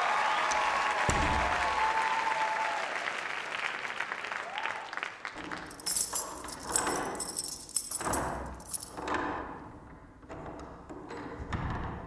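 Audience applause that dies away over the first five seconds, followed by sparse clicks and short electronic sound effects from the dance soundtrack.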